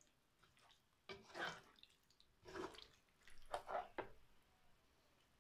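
Slotted spoon stirring thick stew in a frying pan: a few faint, short wet squelches, spaced about a second apart.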